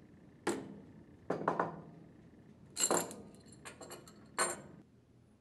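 Steel spanner wrench clinking against the shaft lock nut of an internal gear pump and set down on a wooden bench: a series of short metallic clinks and clatters.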